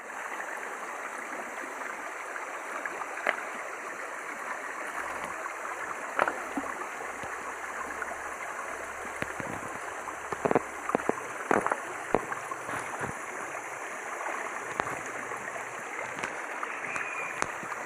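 Shallow, clear rocky stream running over stones and pebbles: a steady rushing babble of water, with a few short sharp ticks about ten to thirteen seconds in.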